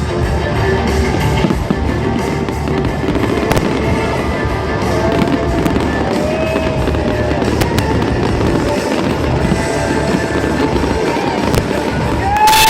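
Fireworks display going off continuously: dense crackling and popping, with several short whistles that rise and fall, over music playing.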